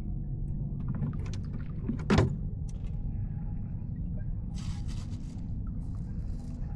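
Boat engine running with a steady low rumble, with scattered knocks and one sharp, loud knock about two seconds in.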